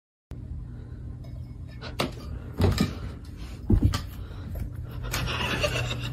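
A cat moving about on a wooden dresser: several knocks and thumps over a steady low hum.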